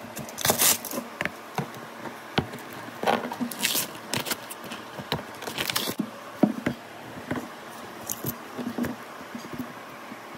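A canvas board being handled and turned over: scattered light taps and knocks with a few brief scraping rustles.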